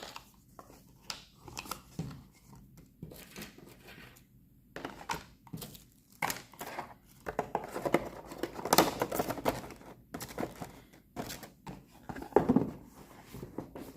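Packaging being handled: irregular crinkling and rustling with scattered light clicks and knocks.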